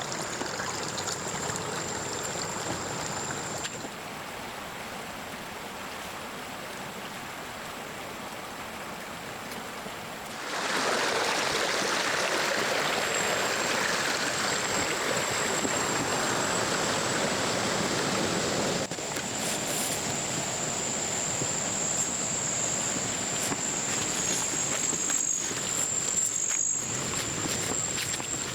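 Running water, a steady rush that gets louder and fuller about ten seconds in and eases again a few seconds later, with a thin high steady tone above it.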